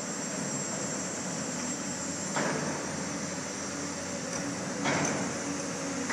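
Diesel excavator engine running steadily, with two short clunks about two and a half seconds apart.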